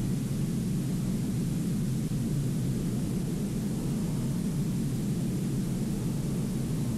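Steady, loud rumbling roar of noise, a cartoon sound effect of the kind used for a rocket or jet blast.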